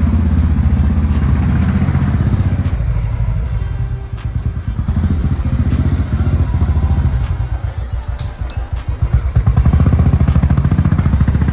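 Motorcycle engine running on the move through traffic, with a heavy low rumble that eases a little about four and eight seconds in.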